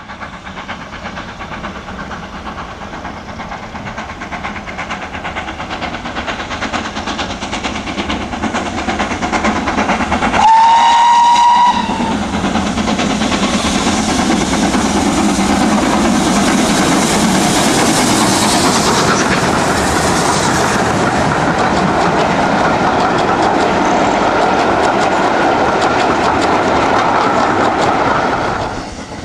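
Steam locomotive hauling passenger coaches, approaching and growing louder; about ten seconds in it sounds one short whistle blast lasting about a second and a half. The train then passes close by, its coach wheels running on the rails, until the sound drops away abruptly near the end.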